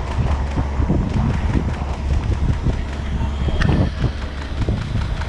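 Wildfire burning close by, with irregular crackling and pops over a steady low rumble and the hiss of a hose stream spraying into the flames.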